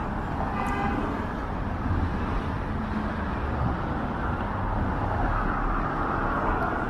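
Steady road traffic noise from cars driving along a busy city street.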